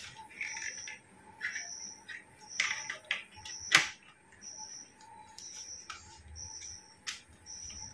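Clicks and knocks of a camera being set onto a tripod head and fastened, with one sharp click about halfway through. Behind it, a short high chirp repeats about once a second.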